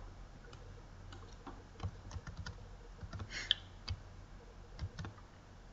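Faint scattered taps of a computer keyboard and mouse clicks, about a dozen of them, starting about two seconds in and stopping shortly before the end.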